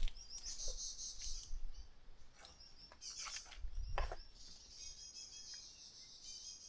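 Small birds chirping in quick runs of high notes, ending in a longer trill over the last two seconds, with a soft thump about four seconds in.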